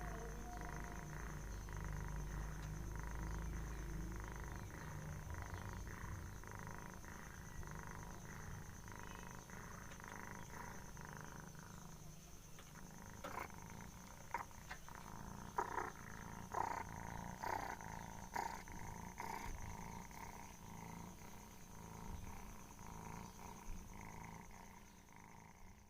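Sleeping cat snoring loudly, a steady rhythmic rasp breath after breath. About halfway through, a run of sharp clicks sounds over it.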